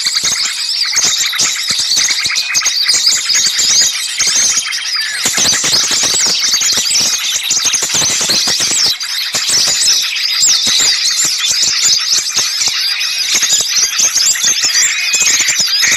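A dense, frantic chorus of many small songbirds chattering and shrieking over one another, a continuous jumble of rapid high-pitched chirps. It is a bird-lure recording of agitated small birds, played to draw other small birds in.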